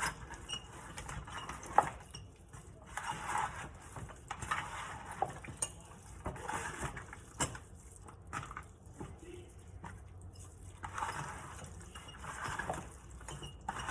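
Hands tossing raw chicken wings in dry seasoning: irregular wet squishing and rustling, with a few sharp knocks against the dish, the loudest about two seconds in.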